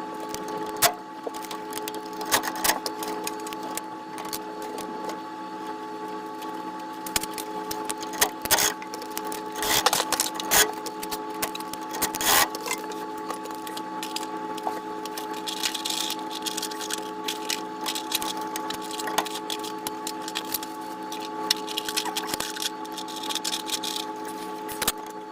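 A steady mechanical hum runs throughout, with scattered clicks, knocks and clatter from work being done on the furnace.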